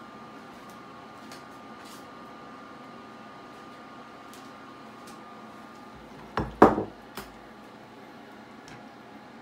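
Faint steady room hum, then about six seconds in a brief clatter of three or four knocks: kitchenware set down and handled on a wooden cutting board and table.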